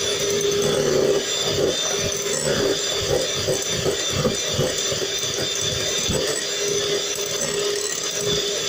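Electric hand mixer running steadily with a constant hum, its beaters whipping egg whites in a glass bowl. An uneven rattle comes from the beaters as they are moved around the bowl.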